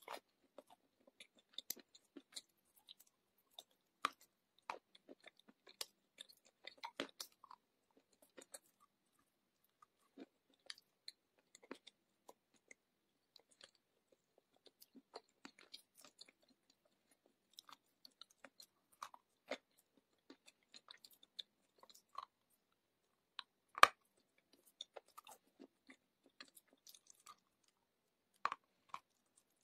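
Clay being broken off by hand and chewed: sparse, irregular crunches and small crackles, with one sharper crack about two-thirds of the way through.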